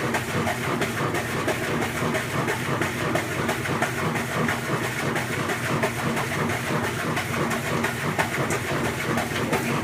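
Maytag Centennial top-load washing machine agitating with an abnormal, fast, even clattering rattle over a steady rumble. It is making far more noise than it should, which the owner takes for a failing bearing or something similar.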